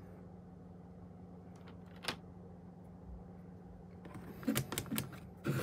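Small clicks of a handheld digital multimeter's rotary selector dial being turned to switch it off, a run of them near the end after a single click about two seconds in, over a faint steady hum.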